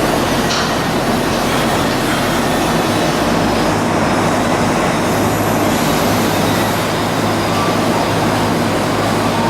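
Loud, steady industrial machinery noise with a low hum running underneath.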